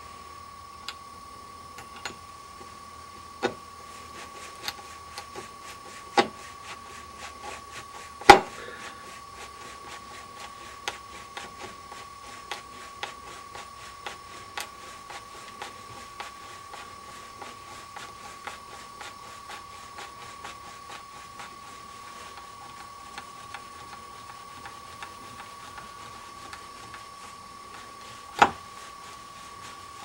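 Hand screwdriver working the screws of a metal deadbolt strike plate in a wooden door frame: irregular small clicks and scrapes of metal on metal, with a few sharper knocks, the loudest about eight seconds in and another near the end. A faint steady high tone runs underneath.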